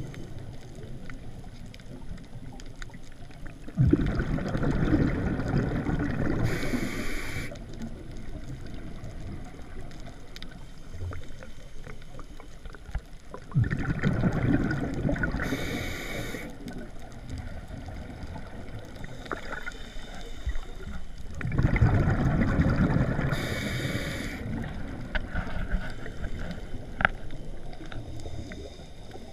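Scuba diver breathing through a Scubapro MK25/S600 regulator underwater: three long bubbling exhalations about eight seconds apart, each ending in a brief hiss.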